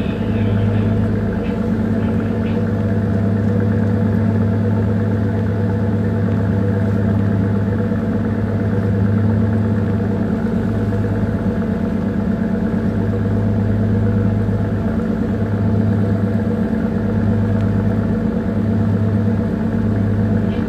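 Small bunker tanker's engine running steadily under way, heard aboard: a constant low drone with a deep hum and a second, higher hum above it.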